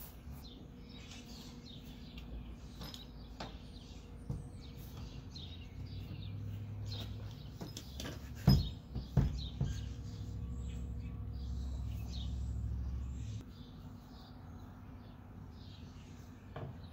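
Small birds chirping over and over throughout, with a low rumble that swells for several seconds in the middle. About eight and a half seconds in come two or three sharp knocks, the loudest sounds, as the plastic kayak hull is set down onto the milk-crate cart.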